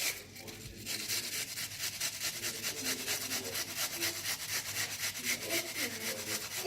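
An onion being grated on a hand grater: quick, regular scraping strokes.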